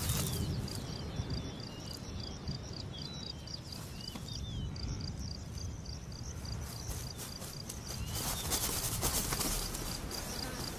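Insects chirping in an even, steady pulse over an outdoor savanna ambience with a low rumble, and a louder rush of noise about eight seconds in that lasts a second or so.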